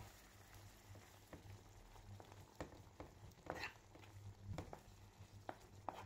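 Spatula stirring a thick, simmering cream sauce in a non-stick frying pan: soft wet scrapes and light clicks against the pan, one longer scrape about three and a half seconds in, over a faint simmer and a low hum.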